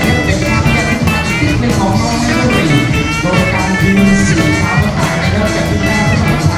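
Loud music with a steady, fast beat.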